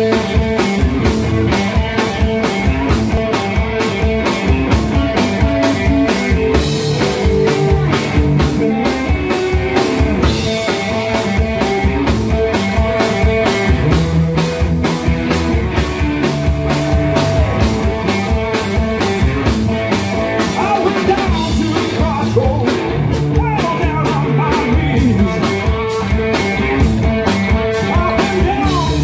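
Live rock band playing loud: two electric guitars, one Stratocaster-style and one Les Paul-style, over a driving drum kit, with a male lead vocal coming in near the end.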